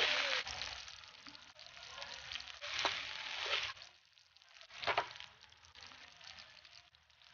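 Onion, garlic and tomato sizzling in hot oil in a wok, stirred with a metal spatula at first; the sizzle drops back within the first second and then carries on softly. Two sharp clicks come about three and five seconds in.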